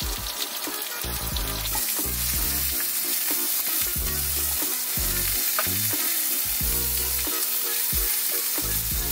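Pork belly sizzling steadily as it fries in a hot pan.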